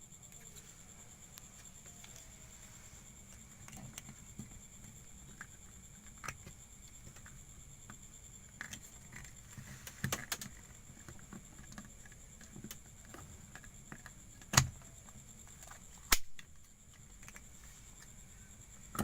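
Quiet room tone with a steady high hiss, broken by a few isolated sharp clicks or knocks, the loudest about ten, fourteen and a half and sixteen seconds in.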